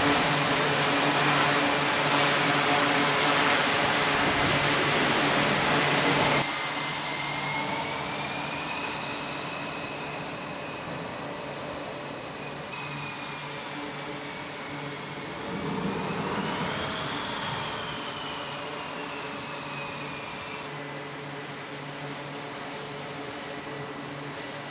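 Jet aircraft engines running on a carrier flight deck: a loud, even jet noise for the first six seconds, then, after an abrupt cut, a quieter high turbine whine that slides up and falls back in pitch near the middle, with further sudden shifts as the sound jumps between scenes.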